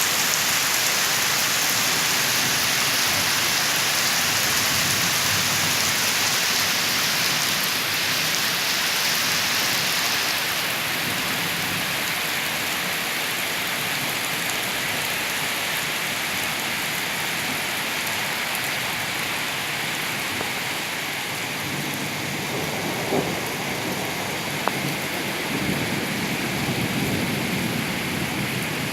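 Heavy rain falling steadily, a dense even hiss that eases slightly about a third of the way in, with a couple of faint knocks near the end.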